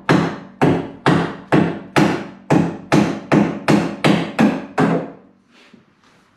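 Hammer tapping a square wooden stair spindle sideways to knock it free of the tacks that hold it. About a dozen sharp strikes, two to three a second and coming slightly faster, stopping about five seconds in.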